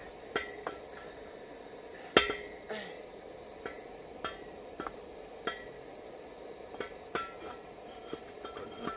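Wooden cooking stick knocking and scraping against a stainless steel pot as stiff ugali is stirred and pressed: a string of irregular sharp knocks, the loudest about two seconds in, over the steady hiss of a gas burner.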